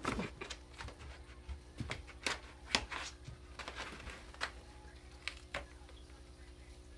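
Irregular scratching and tapping on a cardboard box as cats move in and around it, thick in the first three seconds and then sparse.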